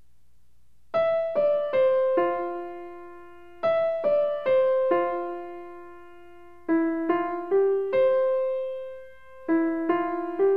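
Background music: a piano-like keyboard melody in four-note phrases, starting about a second in, each note struck and fading, the phrase repeating.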